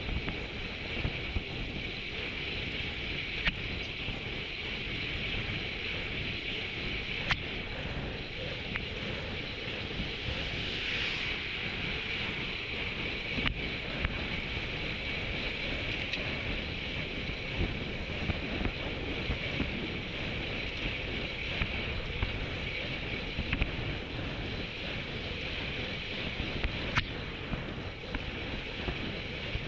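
Steady wind rushing over the microphone of a road cyclist's action camera at about 36–39 km/h, over the hum of the bike rolling on asphalt. A few sharp clicks stand out, around 3, 7, 13 and 27 seconds in.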